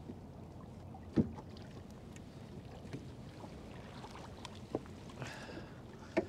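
Hollow knocks and small clicks of a landing net and fishing rod bumping a kayak's hull while a squid is netted, over a low steady wash of wind and water. The sharpest knock comes about a second in, with two more near the end and a brief splash of water just before them.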